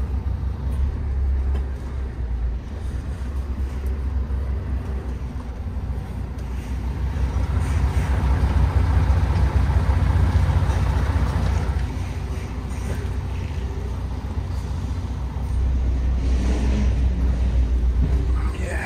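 MAN TGX 18.510 truck's straight-six diesel engine running with a 25-ton load on, growing louder for a few seconds about halfway through, then easing back to a steady rumble.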